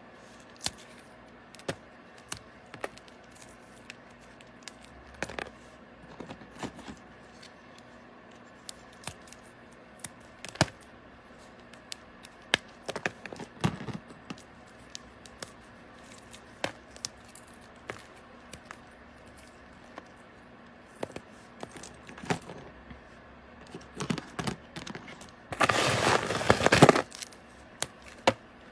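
Chunks of homemade para (paradichlorobenzene) moth bar being crumbled and crushed in the hands: scattered small cracks and crunches, then a couple of seconds of dense, loud crunching near the end.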